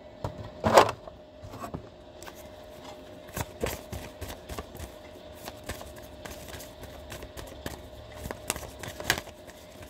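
A deck of oracle cards being shuffled by hand: a run of quick, soft card clicks and slaps, with one sharper knock about a second in.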